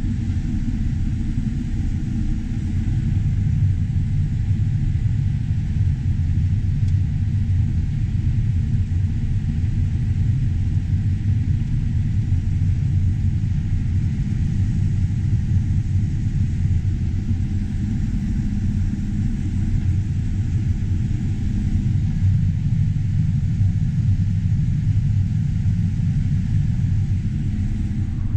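John Deere S670 combine's diesel engine and threshing machinery running steadily under load while harvesting corn, heard from inside the cab as an even low drone.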